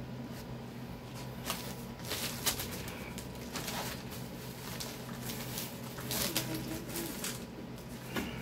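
Cardboard rustling, scraping and crinkling in short irregular bouts as a tall cardboard box is handled and pulled open at its top end, over a steady low hum.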